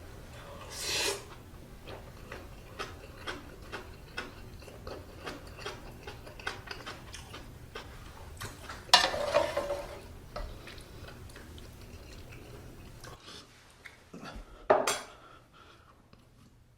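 Metal spoon and chopsticks clicking and scraping against a pot and bowl of stew, many small clinks, with louder noisy scrapes about a second in, near the middle and near the end.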